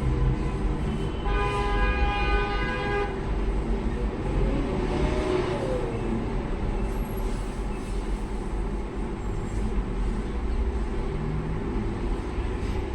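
Steady rumble of passing road traffic, with a vehicle horn sounding once for about two seconds, a little over a second in.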